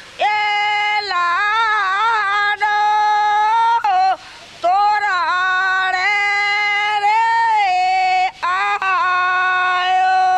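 Elderly woman singing a Kutchi folk wedding song unaccompanied, holding long high notes with small wavers, breaking for breath about four seconds in and again briefly about eight seconds in.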